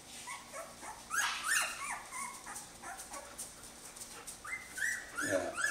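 Twelve-day-old Jämthund puppies whimpering and squeaking: short high-pitched cries that rise and fall, in a cluster about a second in and another near the end.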